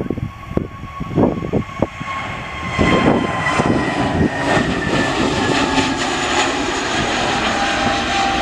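Jet airliner engines, with irregular low thumps in the first two seconds. The engine sound swells from about three seconds in into a steady rush with a high whine that slowly falls in pitch as the aircraft passes.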